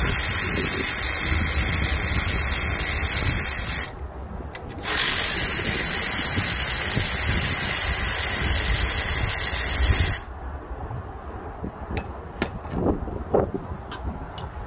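Cordless ratchet run twice, about four seconds and then about five seconds with a short break between, as it backs out the radiator fan shroud bolts. Each run starts and stops abruptly. A few light clicks and knocks of handling follow near the end.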